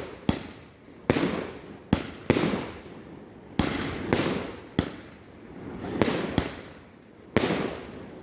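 Fireworks display: aerial shells bursting one after another, about ten sharp bangs in eight seconds. Each bang trails off into a rumbling echo that fades over about a second.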